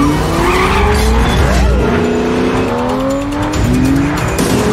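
A car engine accelerating hard: its note climbs, drops back and climbs again several times, as through upshifts, with tires squealing.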